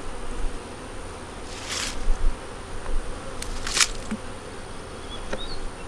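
Honey bees buzzing steadily around an open nuc hive, with two brief hissing rustles, about two seconds in and near the four-second mark.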